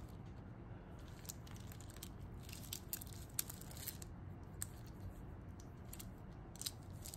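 Faint, irregular light clicks and rustles of plastic beads being handled: fused Perler-bead pieces and pony-bead kandi bracelets knocking together, with the plastic mailer bag crinkling as a hand reaches to it.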